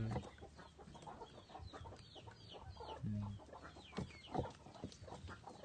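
Chickens clucking and peeping: a steady run of short, high, falling peeps, with a brief low cluck about three seconds in.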